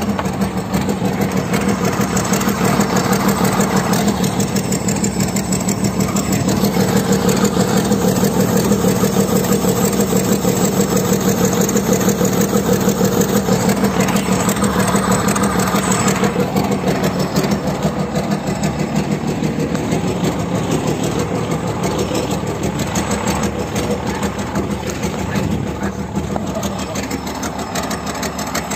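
Komatsu excavator's diesel engine running steadily with a fast, even firing beat, a little quieter in the second half.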